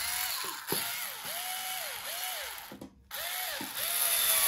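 Small cordless screwdriver's motor, just rebuilt to run on 18650 lithium cells, run in about five short bursts. Its whine rises as it spins up and falls as it slows each time. There is a brief stop about three seconds in, and the last burst is held longer.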